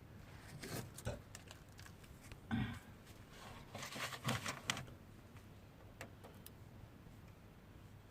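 Scattered clicks, knocks and short rustling noises of hand work. The loudest is a knock about two and a half seconds in, then a cluster of clicks around four to five seconds in.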